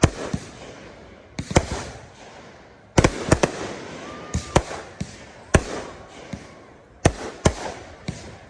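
Aerial fireworks, 3-inch display shells and 500-gram cakes, bursting overhead in a rapid series of about a dozen sharp bangs, several coming in quick pairs, each trailing off afterwards.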